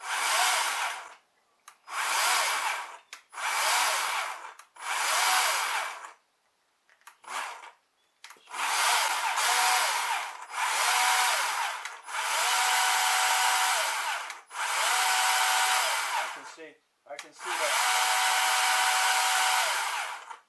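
Worx cordless electric chainsaw run unloaded in repeated trigger squeezes, about eight in all. Each time the motor and chain whine up to speed, hold and wind down. The first bursts last about a second each; after a short pause the later ones are held for two to three seconds.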